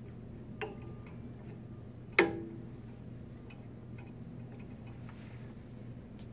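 Clicks and knocks of a plastic bottle being set into the Cap Inspector torque tester's bottle clamp and the clamp closing on it: a light click under a second in, one sharp snap with a short ring about two seconds in, and faint ticks after. A low steady hum lies underneath.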